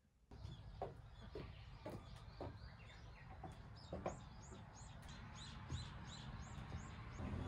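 Wild birds calling: short separate calls, then a fast run of about ten high repeated notes in the middle. A low rumble beneath swells near the end.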